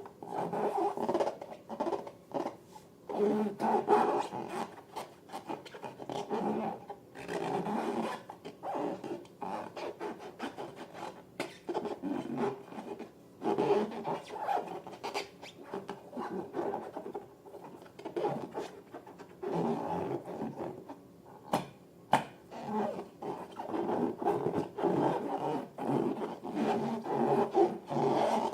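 Hands squishing, stretching and rubbing slime and rubber balloons, an uneven run of squelches and rubbing squeaks, with two sharp clicks about three quarters of the way through.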